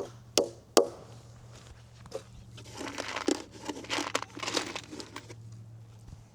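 Three quick hammer taps in the first second, tacking plastic plates onto the end of a wooden beam, then a few seconds of crinkling, rustling handling noise.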